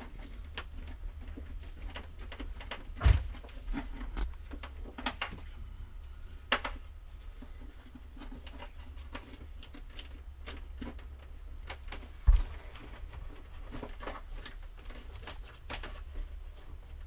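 Clicks and knocks from hands working on wiring under the dashboard of a stripped-out car interior, with two sharp thumps, one about three seconds in and one about twelve seconds in, over a steady low hum.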